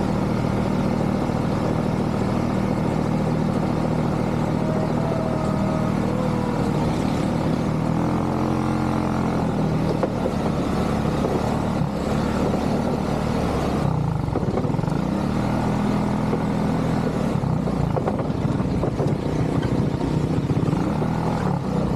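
ATV engine running steadily under way, its revs rising and falling a couple of times as the throttle is eased on and off.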